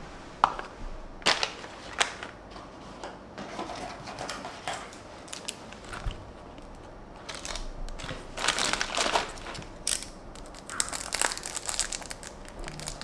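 Toy-car packaging being handled and opened by hand: crinkling and crackling with scattered sharp clicks and taps, busiest about two-thirds of the way through.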